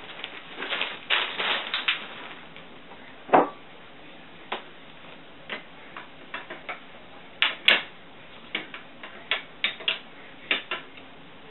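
Rustling of a fabric pop-up tunnel in the first two seconds, then scattered sharp clicks and knocks as striped jump bars are handled and set onto the pegs of a metal jump stand, with a louder knock about three seconds in.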